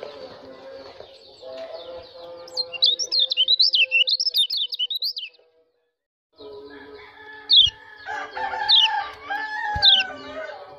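A caged white-eye singing a fast, high, twittering warble of quick rising and falling notes, in the lively chirping that bird keepers play to stir a bird's breeding mood. The song cuts off about halfway through. After a second's silence, sharp downward chirps return over a busier background of lower bird calls.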